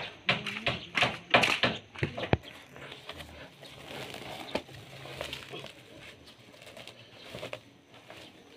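Metal buckets and gravel clanking and scraping, loudest in a quick run of knocks over the first two seconds or so, then quieter rustling as a woven cement sack is lifted and emptied onto the pile.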